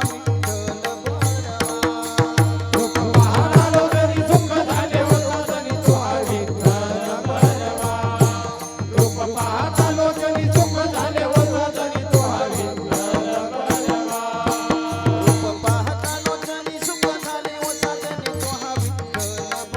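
Devotional kirtan music: a melody line carried over a steady drum beat, with rapid metallic cymbal clicks running throughout.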